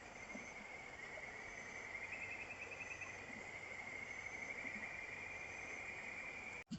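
Insects trilling steadily, a continuous high buzzing trill that comes and goes in pulsed stretches, over a faint background hiss; it cuts off suddenly near the end.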